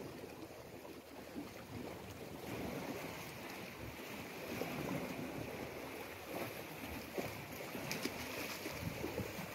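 Wind buffeting the microphone over the wash of sea against rocks. A few brief knocks near the end, and a small splash as a fish is dropped back into the water.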